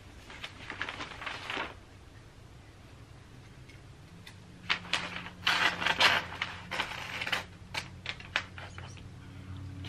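Wrapping paper rustling and crinkling in bursts as it is handled and cut, loudest in the middle, followed by a few sharp snips of scissors near the end.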